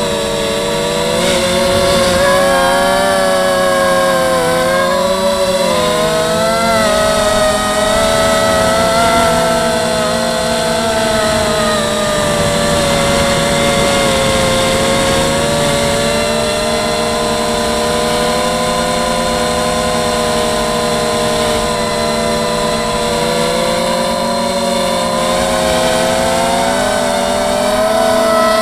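FPV quadcopter's electric motors and propellers whining continuously, the pitch rising and falling as the throttle changes.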